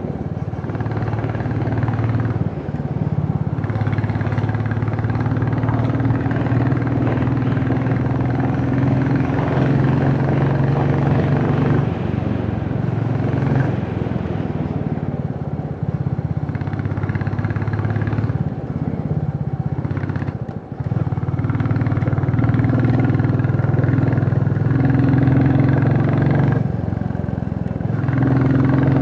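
A vehicle engine running steadily, its pitch stepping up and down a few times, with a brief dip in level about twenty seconds in.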